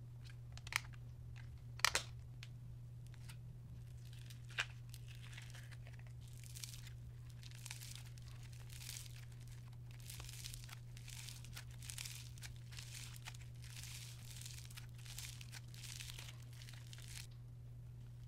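Green and yellow foam slime squeezed and pulled apart by hand, giving a long run of soft crackling and crunching. A few sharp clicks come in the first few seconds as its small plastic tub is handled and opened. A steady low hum runs underneath.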